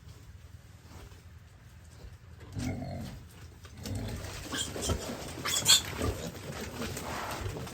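Pigs grunting, starting about two and a half seconds in, with a few knocks among the grunts.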